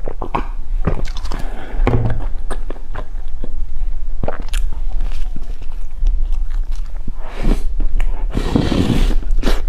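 Close-miked eating sounds: a sip and swallow of water, then wet mouth clicks and chewing. Near the end comes a longer crumbly bite into a dense chocolate bread loaf.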